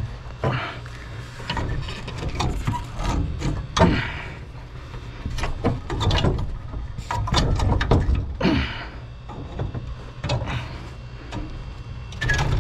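A heavy hermetic refrigeration compressor being rocked and shifted by hand off its mounting base: irregular knocks, bumps and scraping of its steel shell against the base and cabinet, with handling noise throughout.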